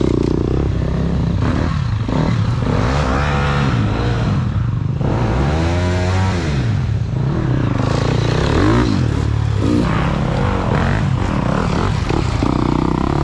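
Several dirt bikes ridden past close by, their engines revving up and down in repeated swells of rising and falling pitch.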